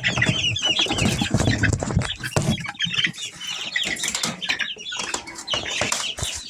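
A brooder box of juvenile chickens peeping in rapid, overlapping chirps while wings flap and flutter and feet scratch in the bedding.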